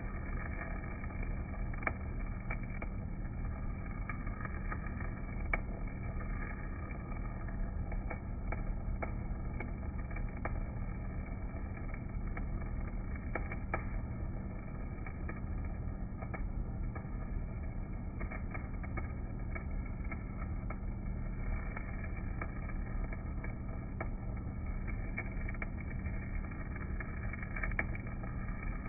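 Stick-welding arc burning on a basic EZ50 electrode, a continuous sizzling crackle with scattered sharper pops over a steady low hum.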